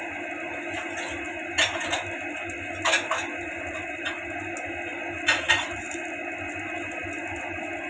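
Kitchen utensils clinking against a cooking pot or pan: three quick pairs of sharp clinks and one lighter one, over a steady background hum.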